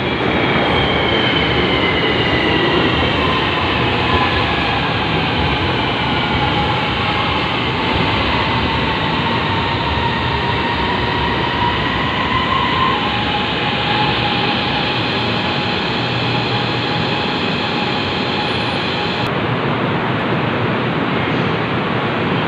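A rapidKL light-rail train pulls into the station and brakes to a stop. Its electric drive whine falls steadily in pitch as it slows, then holds a steady tone. The high rushing sound cuts off abruptly a few seconds before the end.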